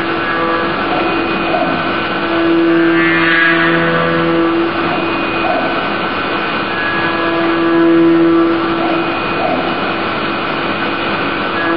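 CNC milling machine cutting aluminium under flood coolant: a steady pitched hum from the spindle and cutter that grows louder and fades in turns as the tool works, over the continuous hiss of the coolant spray.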